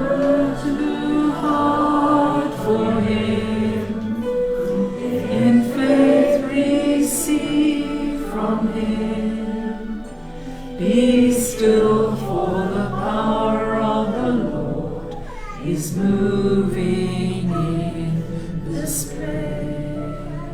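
Choir singing a hymn with sustained, legato phrases.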